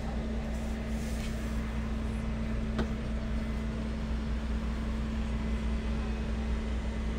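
Steady low mechanical hum with a constant tone, with a faint click a little under three seconds in.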